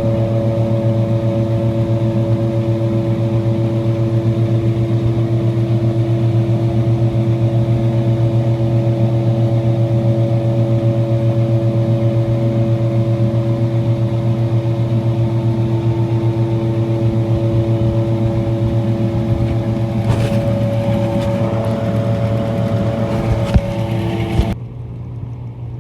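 Small ore mill with its impact crusher running, re-crushing oversized gold ore: a steady, loud machine drone with a few knocks near the end. About a second before the end it cuts sharply to a much quieter sound.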